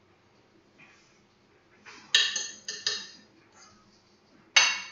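Metal utensils clinking against a ceramic plate and bowl while food is served: a few ringing clinks about two seconds in, then a louder one near the end.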